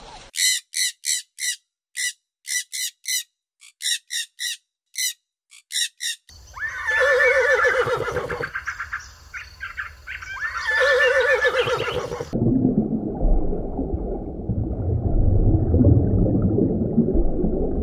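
A rapid run of short, shrill calls for about six seconds, then a horse whinnying twice, each whinny a second or more long, then a low steady rumbling noise.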